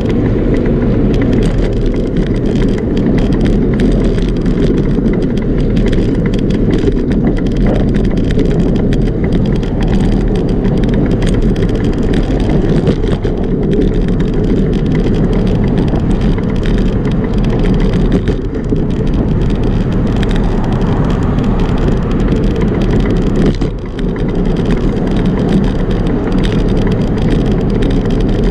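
Steady wind rumble buffeting the microphone of a camera riding on a moving bicycle, with road and tyre noise mixed in.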